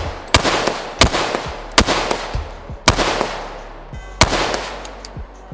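5.56 AR-15 rifle firing five semi-automatic shots about a second apart through a bare Witt Machine muzzle brake with its SME blast shroud off. Each shot is very loud, with an echo trailing off after it.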